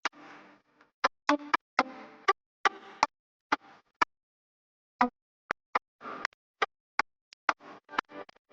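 Sparse electronic music of short, sharp struck notes with brief pitched tails, coming irregularly one to three a second, with a second-long pause near the middle.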